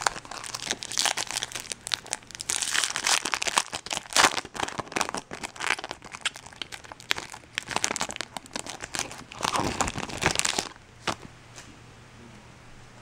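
A foil trading-card pack being torn open and crinkled by hand: a dense crackling and rustling of the wrapper that stops after about ten and a half seconds.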